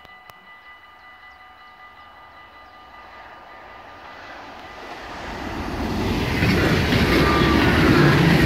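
Yellow-and-blue NS electric intercity train approaching and passing close by at speed. It is faint at first, then the rush of wheels on rails swells over a few seconds and is loud from about six seconds in.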